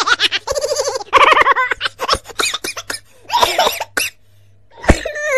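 A man laughing hard in quick, pulsing bursts of voice, broken by short gaps.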